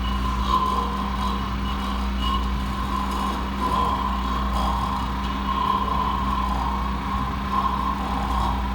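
Steady electronic drone: a constant low hum and a steady tone, with a higher wavering tone that swells and fades several times.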